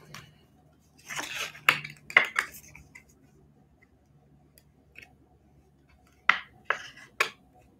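Trading cards and plastic card holders being handled on a marble tabletop. A rustle with several sharp clicks comes about a second in, then three sharp clicks near the end.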